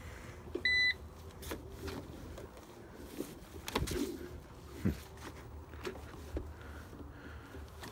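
Jetson Rave hoverboard giving one short electronic beep about a second in, then a faint steady motor hum with a few light knocks as it is ridden on grass.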